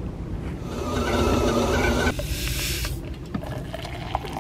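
A loud rushing hiss for about two seconds, then hot water poured from a kettle into a travel mug with small splashes and clicks, over a steady low rumble.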